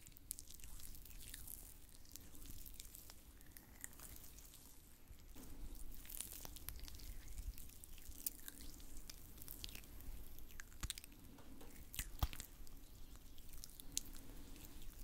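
Oiled hands rubbing and pressing in a slow face-massage motion, making soft, wet, slippery sounds with scattered small sticky clicks at irregular moments.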